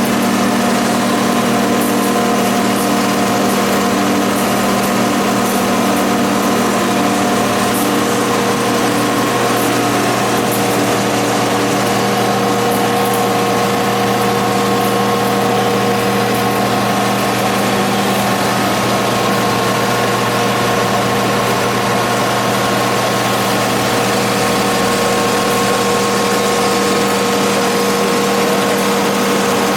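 CNC deep hole drilling machine running: a steady machine hum with several steady whining tones over a noisy wash. Faint light ticks come and go during roughly the first third.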